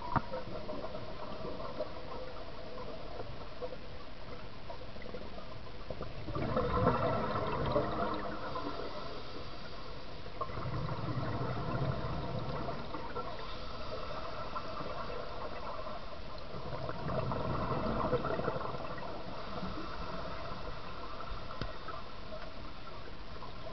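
Scuba regulator exhaust bubbles gurgling and rushing, heard underwater: a diver's exhalations, surging three times about five seconds apart over a steady hiss.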